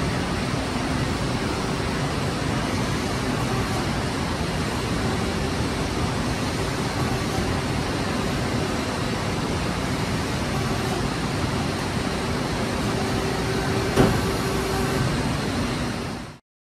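Steady machine-shop hum: an even rushing noise with a faint constant tone through it. A single sharp knock sounds about fourteen seconds in, and the sound cuts off suddenly near the end.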